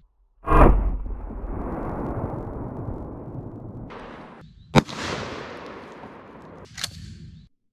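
Rock Island Armory 12-gauge pump shotgun fired at point-blank range. A heavy, deep blast comes about half a second in, and a sharp shot comes near five seconds. Each is followed by a long rolling echo that fades over a few seconds, with a shorter sharp crack near the end.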